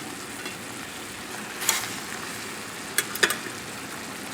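Onions and mushrooms sizzling steadily in a frying pan as the chicken cutlets are put in. A few sharp knocks against the pan come about a second and a half and three seconds in.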